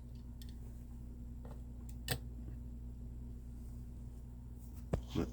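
Light handling clicks of a small diecast model car and its packaging: one sharp click about two seconds in and a few more near the end, over a steady low hum.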